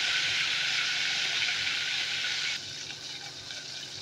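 Ghevar batter frying in hot oil in a deep aluminium pot, a dense, steady sizzle as the batter froths up. It drops suddenly to quieter crackling about two and a half seconds in.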